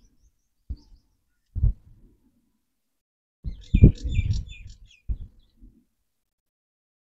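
Birds chirping in quick high calls for a second or two about halfway through, amid several dull low thumps, the loudest about four seconds in.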